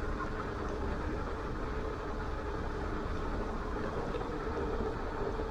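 Riding noise from an e-bike rolling along a paved road: a steady rush of wind and tyres on asphalt, with a faint even hum running underneath.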